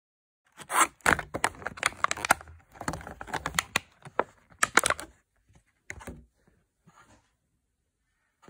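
Clear plastic packaging crinkling and tearing as a small plastic cat figure is pulled out of it, a dense run of crackles for about four seconds, then a few scattered rustles.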